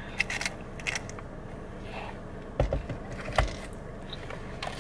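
Quiet car interior with a low steady hum, a few light clicks early and two dull thumps a little past halfway, from handling a plastic drink cup after sipping through its straw.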